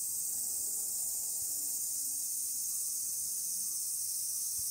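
Chorus of summer cicadas: a steady, dense, high-pitched buzz.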